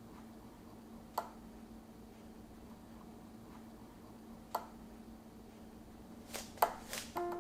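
Light kitchen taps: a single sharp click about a second in and another past the middle, then a quick run of several louder clicks near the end, over a faint steady hum. Piano music starts right at the very end.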